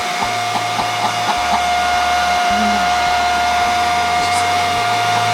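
Hand-held blow dryer running steadily, with a constant motor whine over the rush of air.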